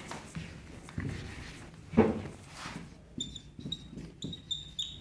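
Marker squeaking on a whiteboard in quick short strokes, several squeaks a second in the second half, with one louder bump about two seconds in.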